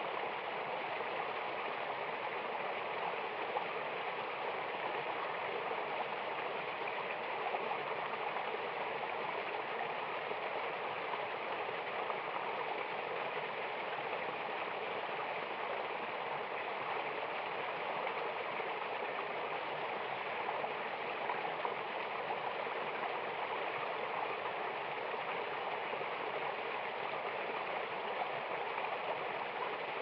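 Small waterfall spilling into a shallow stream pool: a steady rush and splash of running water.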